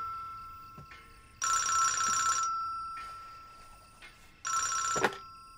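Push-button desk telephone ringing in bursts of about a second, the tone fading away between rings. The third ring is cut short about five seconds in by a click as the handset is picked up.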